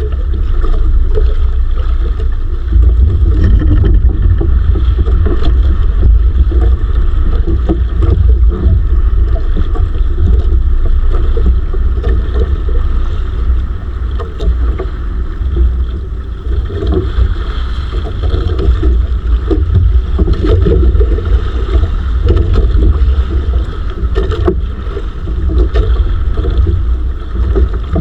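Motorized bangka (outrigger fishing boat) engine running steadily, with wind buffeting the microphone.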